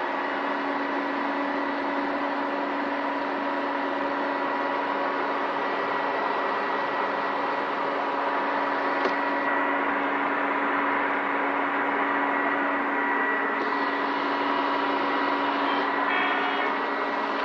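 Case IH 7230 combine's diesel engine running steadily just after start-up, heard from inside the cab, with a steady whine on top of the engine note.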